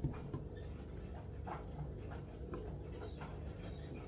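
Faint, irregular light taps and clicks of kitchen utensils and a mixing bowl being handled, a handful in all, over a steady low hum.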